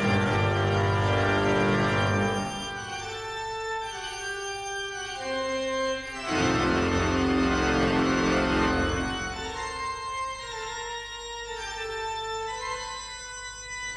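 Organ music: slow sustained chords of held notes. It swells loud with deep bass notes at the start and again about six seconds in, softer between.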